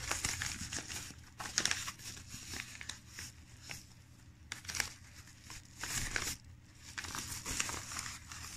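Yellow padded paper mailer being handled and pulled open: irregular crinkling and rustling of the paper with bits of tearing.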